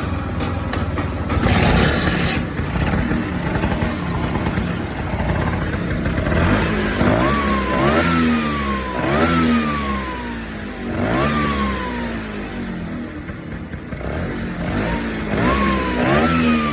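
Vespa PS Strada's single-cylinder two-stroke engine idling, then revved several times from about six seconds in, each rev rising quickly and sinking slowly back to idle. It is a healthy, steady idle.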